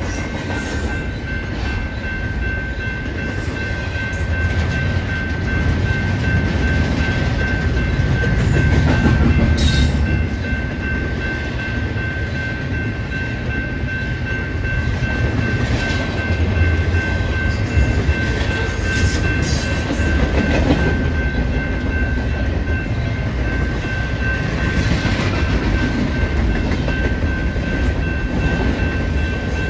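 BNSF double-stack intermodal freight train rolling past at a grade crossing: a steady, loud rumble of wheels on rail that swells and eases slightly as the cars go by. A steady high tone runs through it, and there are a couple of brief sharper noises about ten and twenty seconds in.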